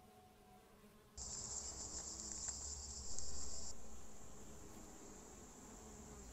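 Honeybees buzzing as they fly around a hive entrance, with a steady high-pitched hiss that starts suddenly about a second in and fades somewhat after about three and a half seconds.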